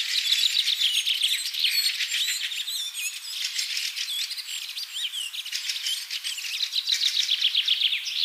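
A busy chorus of small birds chirping and twittering: many quick, high, overlapping notes, some sliding up or down in pitch, without a break.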